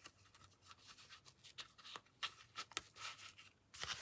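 Faint scraping and a few light taps of cardstock as a handmade slimline slider card is handled and its sliding closure worked.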